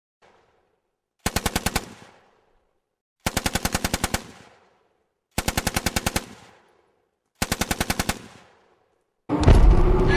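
Four short bursts of rapid automatic gunfire, about two seconds apart, each trailing off in an echo. Near the end a loud mix of music and crowd noise cuts in.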